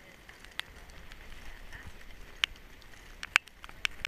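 Scattered sharp clicks and crackles from glacier ice, coming irregularly and a second or so apart, with a close pair a little past three seconds in, over a faint steady hiss.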